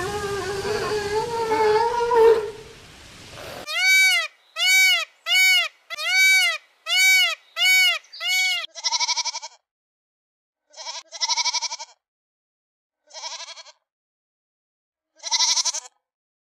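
A group of sea lions calling over a noisy background, cut off about three and a half seconds in. Then an Indian peafowl gives a run of seven loud calls, each rising and falling in pitch. Then a sheep gives four short, quavering bleats a couple of seconds apart.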